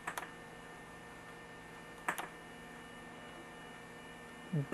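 Faint steady electrical hum from a dirty oscillating fan's motor that is barely turning on its low speeds, with two short clicks about two seconds apart.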